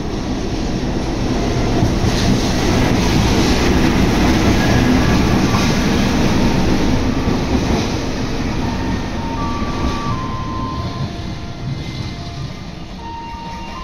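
A train running past on the rails, a dense rumble of wheels and running gear that builds to its loudest about four to five seconds in, then slowly fades. Short melodic notes come in over it in the last few seconds.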